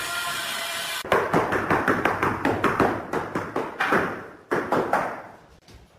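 Rapid, sharp tapping, about five or six taps a second, as tiles are tapped down into place while being laid. It comes after about a second of steady noise that cuts off abruptly, and ends with a last burst of taps that fades out.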